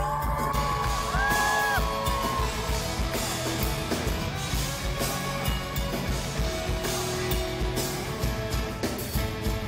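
Live rock band playing a song with drums and guitar. A sung note is held for the first couple of seconds, then the band carries on with a steady drum beat.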